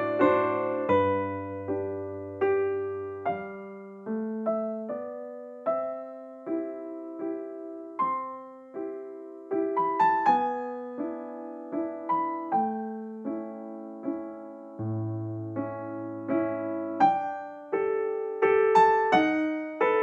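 Background piano music: a slow, gentle melody of single struck notes, each fading away, over sustained low bass notes.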